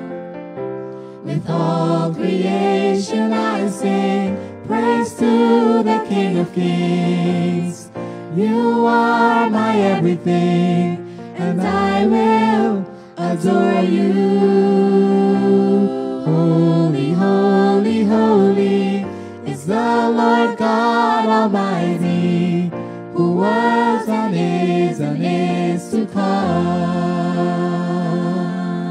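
Christian hymn music: voices singing a slow melody in phrases over held chords.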